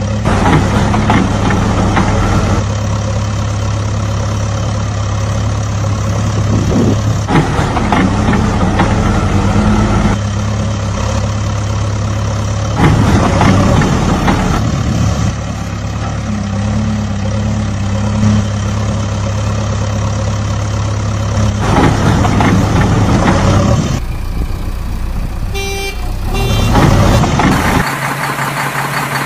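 Heavy vehicle engine running at a steady low hum, with louder swells every few seconds. The sound shifts near the end, with a few short high tones.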